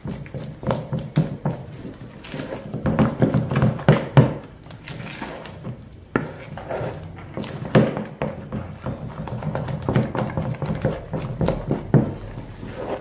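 Spoon beating a thick, sticky cassava-starch dough in a plastic bowl: irregular wet slaps of the dough and knocks of the spoon against the bowl.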